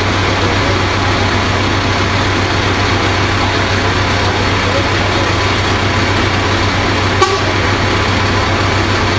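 Heavy diesel truck engine running steadily as a DAF fire engine pulls up at low speed, with a constant low rumble. A single sharp click comes about seven seconds in.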